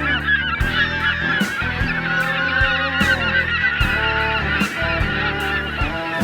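A flock of birds calling all at once in many overlapping short, wavering calls, over background music with a steady beat.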